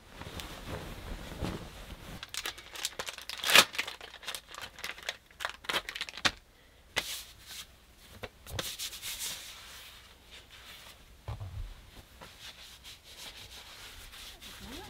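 Cloth sheet rustling and swishing as it is unfolded and shaken out, with one loud swish about three and a half seconds in. It turns to quieter, scattered rubbing and rustling in the second half, with a soft low thump.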